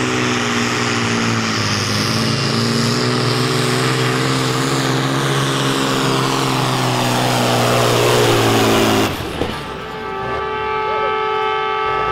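A modified International Harvester pulling tractor's diesel engine running flat out under heavy load as it drags a weight-transfer sled, its pitch falling just before the sound breaks off about nine seconds in. A steady high tone with overtones then takes over.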